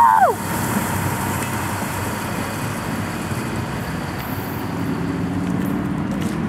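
Rail train of long-welded-rail cars rolling past and away, a steady rumble and hiss of wheels on the track, with a low engine drone growing over the last couple of seconds. A brief rising-and-falling voice-like call right at the start.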